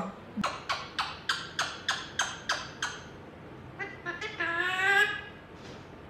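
Indian ringneck parrot calling: a rapid, even run of about nine short, sharp calls, roughly three a second. About four seconds in comes one longer, drawn-out call.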